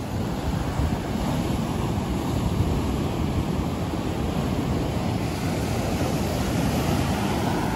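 Heavy sea surf breaking and washing up a sandy beach, a steady rush of noise, with wind on the microphone.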